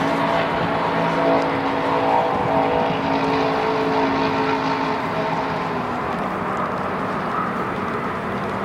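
A motor engine drones steadily at a held pitch over a background hiss, its pitch dropping slightly about six seconds in.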